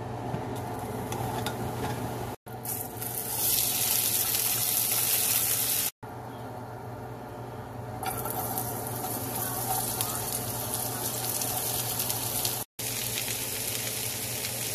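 Chopped zucchini and onion frying in hot sesame oil in a saute pan, a steady sizzle that jumps louder as more vegetables are tipped in. The sound drops out briefly three times.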